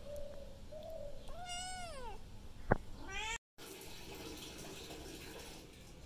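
Kitten meowing: several high meows that rise and fall over the first three seconds, with one sharp click about halfway through as the loudest moment. The sound cuts out briefly and only faint background noise follows.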